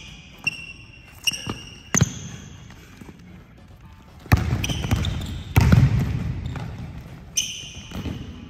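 Basketball bouncing on a hardwood court, with sneakers squeaking sharply on the floor during the one-on-one play. Around the middle, two louder heavy thuds ring out with an echo, then more squeaks near the end.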